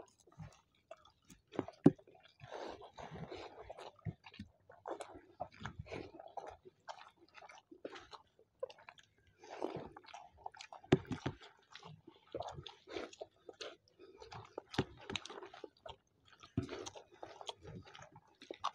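Two people eating egg curry and rice with their hands: chewing, with soft wet squishes of rice and curry, heard as irregular short clicks and smacks.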